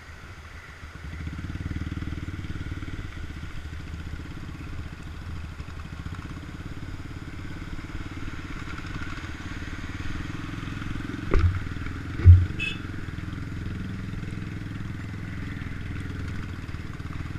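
Motorcycle engine running steadily as the bike rides along, with two heavy thumps about eleven and twelve seconds in.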